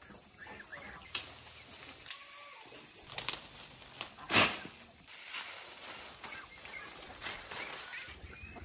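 Insects buzzing steadily, with scattered rustles and clicks and one sharp, loud noise about four seconds in.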